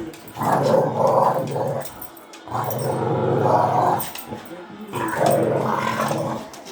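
Dog growling in three long, drawn-out bouts of about a second and a half each, with short pauses between them.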